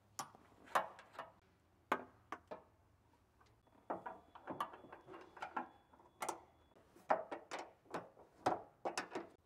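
Ratchet wrench clicking as it turns 12 mm bolts: a few scattered clicks, then from about four seconds in, runs of quick ticking strokes.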